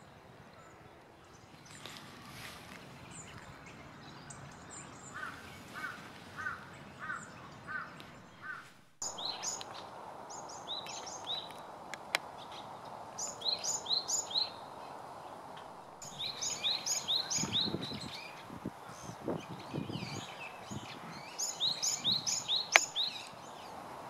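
Japanese tit singing: trains of a quick, repeated high two-note phrase, several series in a row. Before these, a slower series of about seven lower notes is heard. A single sharp tick comes near the end.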